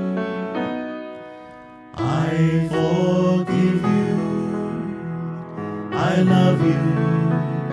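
Grand piano playing a slow song: a held chord fades away for the first two seconds, then fresh chords come in with a voice singing over them, 'I forgive you… I love you'.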